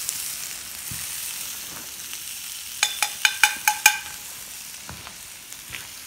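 Capercaillie steak and mushrooms sizzling steadily in a frying pan just taken off the campfire. About three seconds in comes a quick run of about six sharp metallic clinks with a ringing tone, within about a second.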